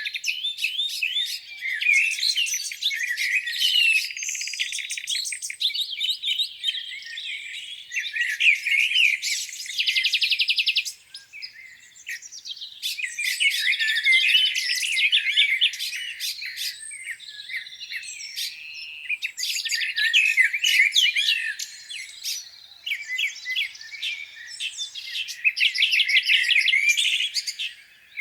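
Several songbirds singing over one another in a dense chorus of chirps, whistles and trills, with a rapid buzzing trill a little under ten seconds in and a short lull just after it.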